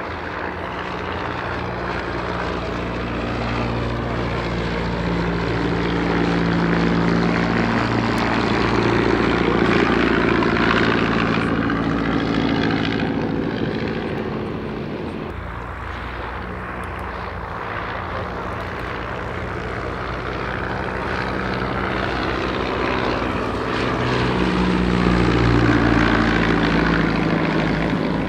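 A First World War biplane fighter's piston engine and propeller droning steadily through a display pass. It grows louder twice, about ten seconds in and again near the end, fading in between, with the deeper engine note dropping away suddenly around the middle.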